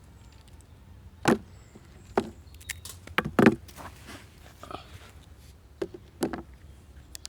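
Camp wood being worked, with about six irregular sharp wooden knocks and cracks. The loudest come about a second in and near the middle.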